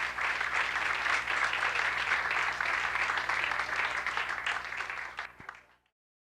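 Audience applauding, a dense patter of many hands that fades quickly and cuts off to silence near the end.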